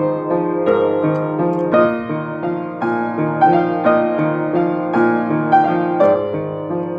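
Upright piano played with both hands: a repeating low figure under chords and a melody line, the notes following one another steadily.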